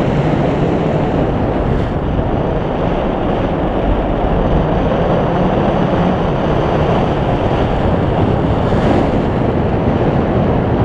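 Steady rush of air from paraglider flight buffeting the camera's microphone, a loud even wind noise with no breaks.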